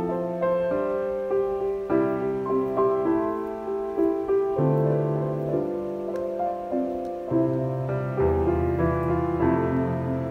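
Background piano music: a slow, gentle melody of single notes and chords over held bass notes.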